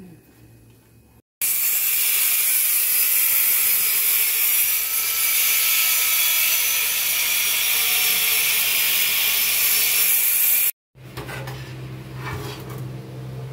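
Power tool running steadily under load, a loud high-pitched grinding hiss, for about nine seconds; it cuts in and out abruptly.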